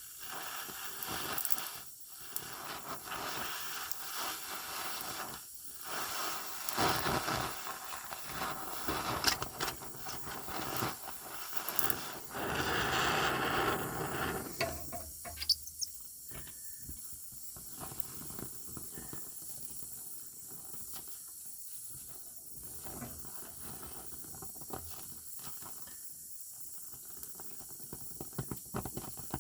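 Welding on car body-mount steel: the weld hisses and crackles in several short runs with brief pauses, for about the first half, then stops, leaving only scattered faint clicks.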